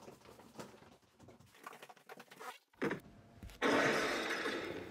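A person spinning around in a small room: faint shuffling and small knocks, then about three and a half seconds in a low thump and a sudden loud rush of noise that fades slowly.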